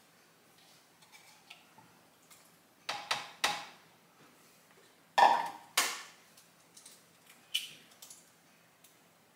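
Kitchen clatter: sharp knocks and clinks of a bowl and utensils being handled on a countertop. They come in three short clusters, the loudest just after five seconds in.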